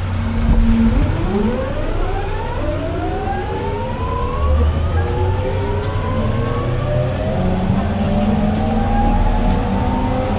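Mitsubishi GTO-VVVF inverter and traction motors of a JR 209-1000 series train, heard inside the motor car, as the train gathers speed. Several whining tones rise together in pitch from about half a second in, over a steady low rumble of the running gear.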